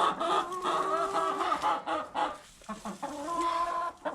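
Chickens clucking: a run of drawn-out calls, one after another.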